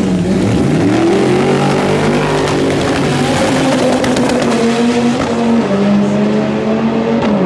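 Race car engine running hard at high revs. Its pitch climbs in the first second or so, then holds and drops in steps about two-thirds of the way through and again near the end.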